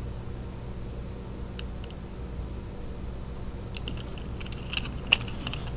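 Light clicks and small clattering of little hard objects being handled, a couple of faint ones about a second and a half in and a busier run of them through the second half, over a steady low hum.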